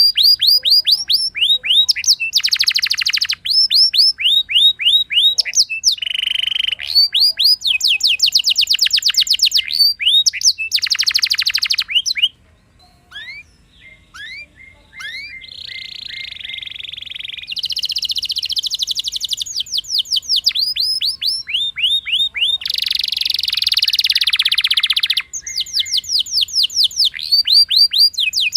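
Domestic canary singing a long rolling song: runs of quick, repeated notes that each sweep downward, alternating with fast buzzing trills. The song breaks off briefly about twelve seconds in, then carries on.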